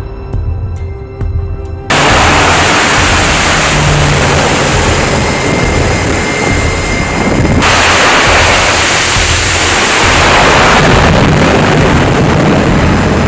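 Tense background music that cuts off abruptly about two seconds in, giving way to a loud, steady rushing roar of noise that runs on at an even level.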